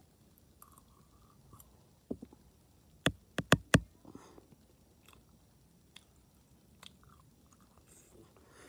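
Close-miked chewing and biting of food taken off a fork: soft mouth sounds with scattered clicks, and a quick run of four sharp, loud clicks a little after three seconds in.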